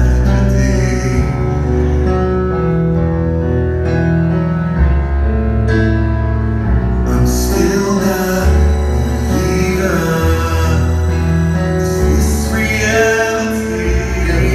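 Live progressive metal band playing a slow passage: long held bass notes under guitar and keyboards, with a male singer singing over them.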